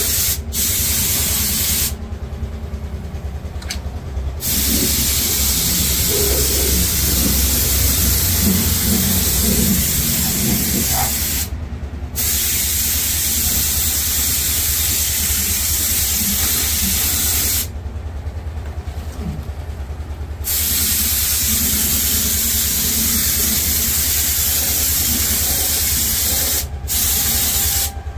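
Air spray gun hissing as it sprays rubberised anti-rust underbody coating, in long bursts broken by several short pauses, over a steady low hum.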